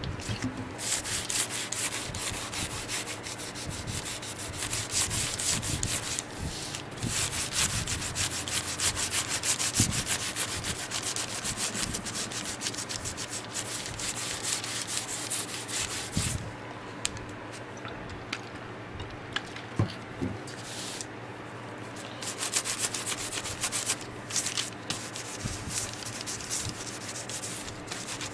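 An applicator pad rubbing oil dye into a tooled leather belt in quick back-and-forth strokes: a steady scratchy swishing that stops briefly several times.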